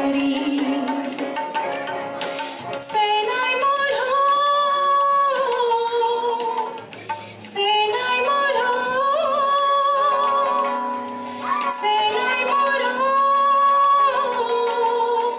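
A woman singing in phrases with long held notes, accompanied by a strummed acoustic guitar and tabla.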